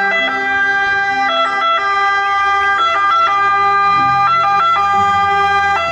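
Italian ambulance siren sounding continuously, its pitch switching briefly about every second and a half.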